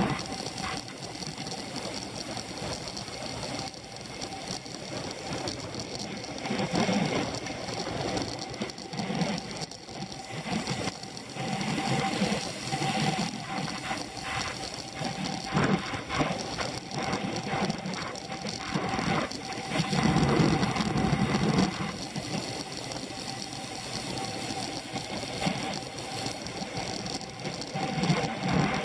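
Racing road bicycle in motion, heard through a camera clamped to its handlebars: a fast, continuous rattle and clicking from the bike and mount over the road, with swells of low rumble now and then.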